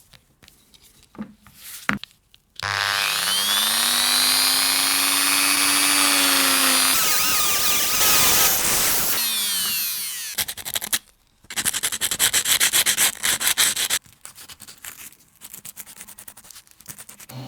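A small electric rotary tool spins up with a rising whine, then grinds and polishes against a part with a harsh gritty sound before winding down. A second burst of rapid rubbing strokes follows.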